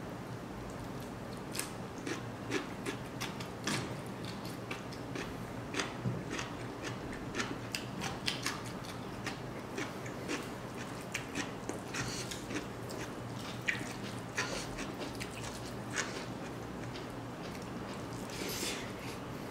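Close-up eating sounds: a bite into a raw green chilli, then chewing of rice and dry pork eaten by hand, with many short wet mouth clicks and smacks scattered throughout, over a faint steady low hum.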